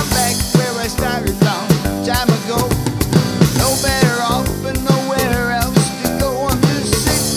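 Instrumental break of a retro rock-and-roll song: electric guitar playing a lead line with bending, wavering notes over acoustic guitar and a steady drum beat.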